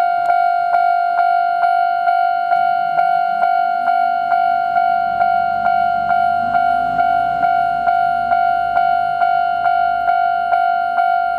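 Japanese railway level crossing alarm ringing its repeated electronic bell tone, about two strikes a second. From about halfway in, the low rumble of an approaching diesel railcar's engine rises under it.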